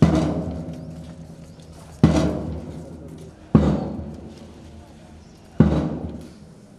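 Background music of four heavy drum-like hits, roughly every one and a half to two seconds, each ringing out slowly over a low held chord.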